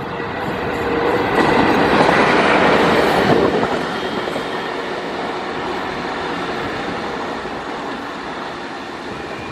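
Twin WAG-5 electric locomotives running light, passing close: a dense rumble and rattle of wheels on rails and running gear that swells to its loudest about two to three seconds in, then slowly eases off as they draw away.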